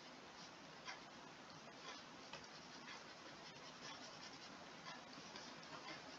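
Faint scratching of a stylus stroking across a drawing tablet, a string of short, irregular strokes.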